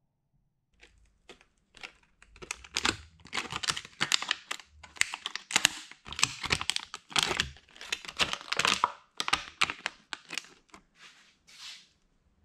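The torn plastic of a water bottle burst by compressed air crinkling and crackling as it is handled, a dense run of irregular crackles that thins out near the end.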